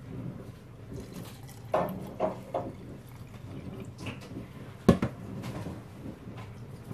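Cloudy rice-rinsing water poured from a bowl into a glass jar packed with pickling greens, with a few short knocks; the loudest is a sharp knock about five seconds in.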